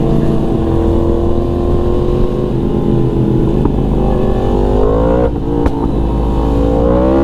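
Motorcycle engine cruising steadily, then accelerating with its pitch climbing; it drops briefly at an upshift about five seconds in and climbs again near the end.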